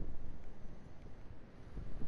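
Wind buffeting the microphone: an uneven low rumble that eases a little through the middle, then picks up again near the end.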